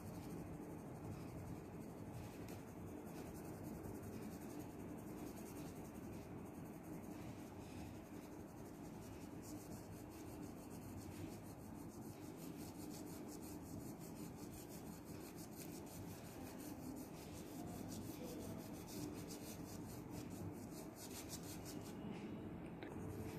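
Faint pencil graphite rubbing and scratching on paper: short shading strokes around a drawn eye, made with a light hand.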